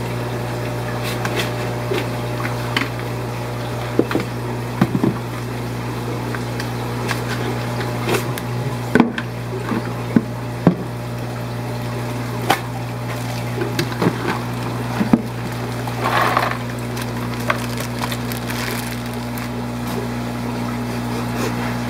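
Shipping boxes and bagged livestock being handled: scattered sharp clicks, knocks and rustles over a steady low hum, with a short rustling or splashing burst about two-thirds of the way through.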